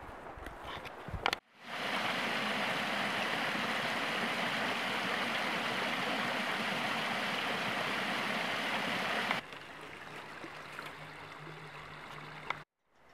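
Small waterfall spilling over a rock ledge into a creek: a steady rush of falling water. About nine seconds in it cuts off sharply to a quieter trickle of the creek running over shallow riffles.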